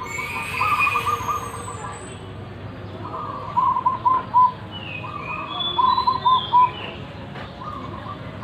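Zebra dove (perkutut) cooing: about three phrases, each a rolling trill ending in four short, evenly spaced notes, with faint higher chirps of other birds behind.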